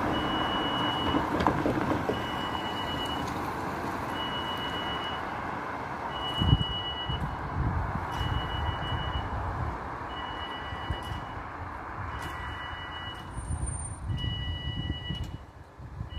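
Level crossing warning alarm beeping a steady high tone, about a second on and a second off, as the barriers lower for an approaching train. Road traffic noise runs underneath, with a loud thump about six seconds in.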